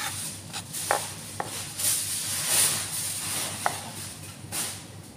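Kitchen knife cutting a green bell pepper on a plastic cutting board: a few sharp, spaced-out knocks of the blade on the board, over a steady high hiss.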